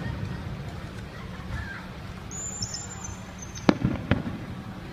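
Aerial fireworks shells bursting: two sharp bangs about half a second apart near the end, over a steady low rumble.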